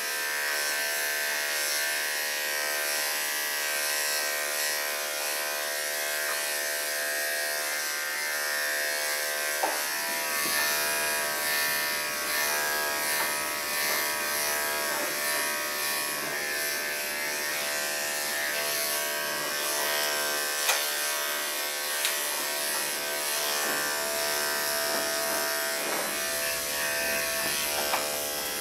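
Electric dog-grooming clippers fitted with a half-inch guard comb, running with a steady buzz while clipping a Yorkshire terrier's coat, with a few brief clicks.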